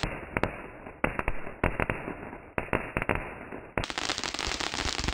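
Ground fountain firework spraying sparks: a steady hiss dotted with many sharp crackling pops.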